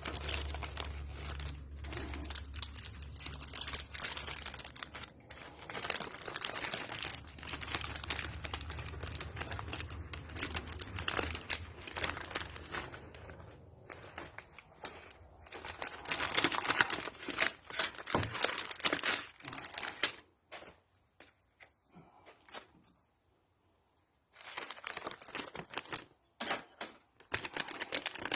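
Packaging rustling and crinkling in irregular bursts as piston-ring sets are handled and unwrapped, with a near-silent pause about three-quarters of the way through.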